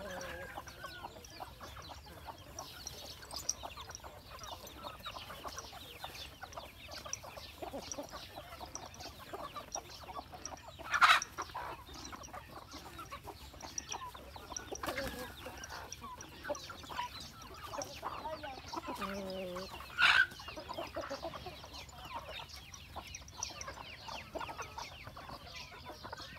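Chickens clucking around a cow at its feed, with two loud short squawks about eleven and twenty seconds in. Underneath, a steady rustle and crunch of the cow eating from a bamboo basket feeder.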